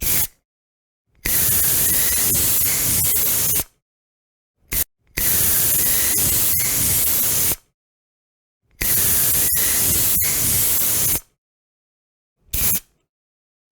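Aerosol spray can, such as a deodorant, hissing in separate bursts: a short puff, then three long sprays of about two and a half seconds each with a brief puff after the first, and another short puff near the end, with silence between.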